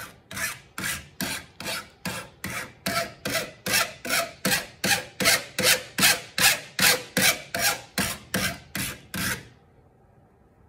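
Hand file rasping across the edge of a thin copper etching plate to bevel it, in quick, even strokes about three a second. The filing stops about a second before the end.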